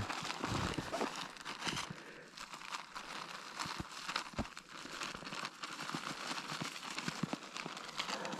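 Irregular rustling and crunching, with scattered light clicks and knocks.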